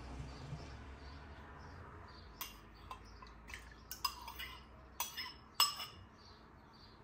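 Metal spoon scraping thick yogurt out of a ceramic bowl into a glass mixing bowl, clinking against the bowls. Sharp clinks start about two and a half seconds in, the loudest near the middle.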